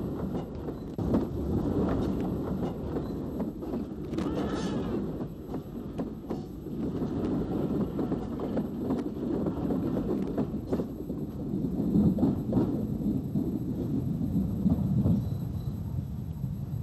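Cavan and Leitrim narrow-gauge 4-4-0 tank steam locomotive No. 4 working a short mixed train past at low speed: a steady rough chuffing and clatter with many sharp knocks from the wagons and track. A brief shrill sound with wavering pitch comes about four and a half seconds in.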